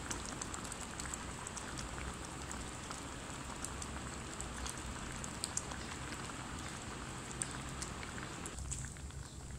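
Thick red-lentil dal simmering in a metal pot: a steady bubbling hiss with scattered small pops, easing a little near the end.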